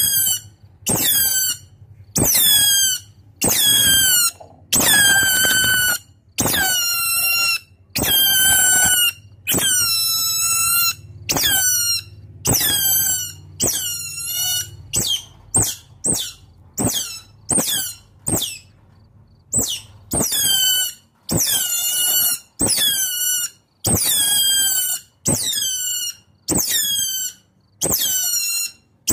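Otter calling to its companions: a series of high-pitched squeaking calls, each falling in pitch, repeated about once a second, with shorter, quicker squeaks in the middle.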